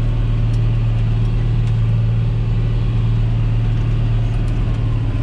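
John Deere 8100 tractor's six-cylinder diesel engine running steadily under load while pulling a disc cultivator, heard from inside the closed cab as an even, low drone.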